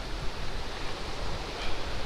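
Wind rumbling and buffeting on a phone microphone outdoors, in uneven gusts over a steady hiss of open-air noise.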